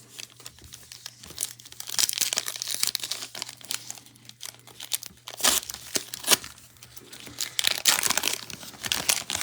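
Plastic trading-card pack wrapper being torn open and crinkled by hand, in irregular crackling bursts with sharp snaps, loudest about two, five and eight seconds in.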